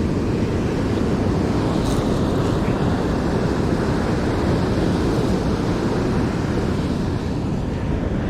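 Steady rumble of wind on the microphone mixed with surf breaking on the beach.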